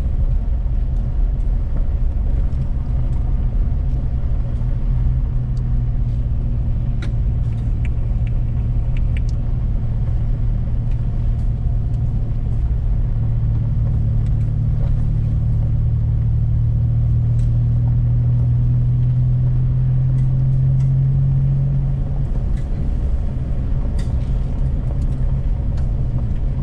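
A 2019 GMC Canyon pickup driving, heard from inside the cab: a steady low engine and road drone that grows louder and climbs slightly in pitch, then falls back about 22 seconds in. Light ticks come now and then over it.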